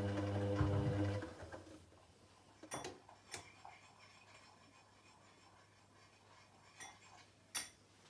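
Candy GODF800 washing machine humming steadily, the hum cutting off about a second in. Then four short, sharp clicks, spread over the next few seconds.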